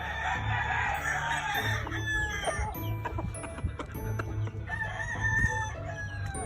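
Gamefowl roosters crowing, with clucking, several calls overlapping, over background music with a steady low beat.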